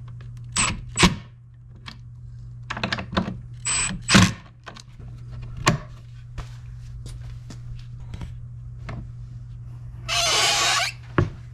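A cordless impact driver runs in short bursts on a screw at the gas-strut mount, among clicks and knocks of the strut and plywood table being handled. About ten seconds in there is a loud scraping rush of about a second as the table folds up on its hinges and gas struts; the hinges make it a little noisy.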